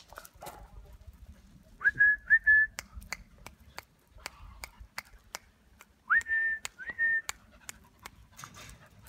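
Person whistling, short whistles that each start with a quick upward sweep: one set about two seconds in and another about six seconds in. A regular series of sharp clicks comes between the two sets.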